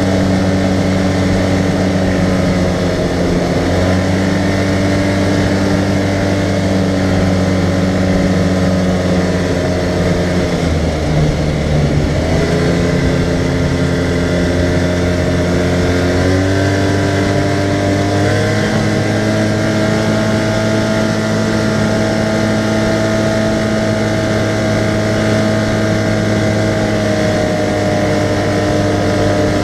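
Arctic Cat side-by-side UTV engine running under way, heard from inside the open cab. The engine note drops about ten seconds in as the machine eases off, then climbs back in three steps over the next several seconds and holds a steady cruising pitch.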